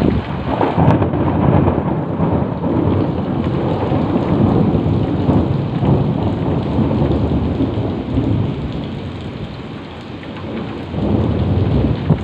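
Heavy rain pouring down, with thunder rumbling through it. The rumble eases about ten seconds in and builds again near the end.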